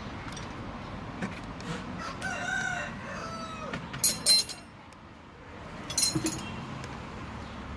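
A rooster crowing once about two seconds in, followed by two clusters of short, shrill high-pitched calls, about four and six seconds in, which are the loudest sounds.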